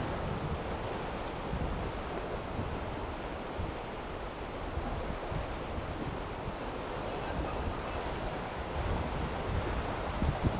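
Strong wind buffeting the microphone over rough sea waves, a steady rushing noise with gusty low rumbles.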